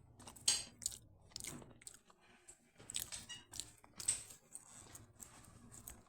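A person chewing food close to the microphone, with irregular short mouth clicks and smacks; the food is a piece of fried ripe plantain (maduro).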